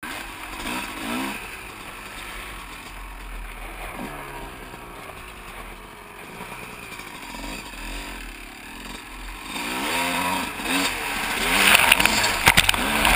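Motocross bike engine revving up and falling back again and again as it is ridden, with rushing wind. It gets louder over the last few seconds, with a few sharp knocks near the end.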